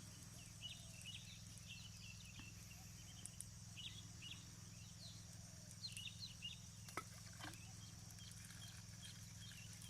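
Faint outdoor ambience: scattered short high chirps over a steady high hiss and a low hum, with a sharp click about seven seconds in.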